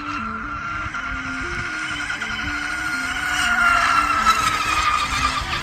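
Brushless electric motor of a Scorpion Rigger RC boat running flat out, a high steady whine. It grows louder around the middle and slides slightly lower in pitch near the end.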